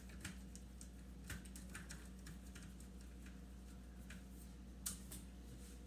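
Faint, scattered light clicks and taps, one a little louder about five seconds in, over a low steady hum.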